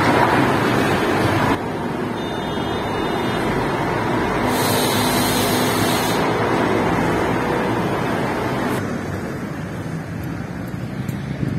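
Road traffic: buses, minibuses, lorries and cars running slowly in a queue, engines idling and moving past as a steady rumble. There is a brief hiss about five seconds in.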